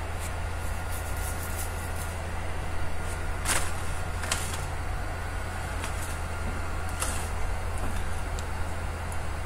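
Steady low electrical hum and hiss of a recording's background noise, with a few soft clicks about three and a half, four and seven seconds in.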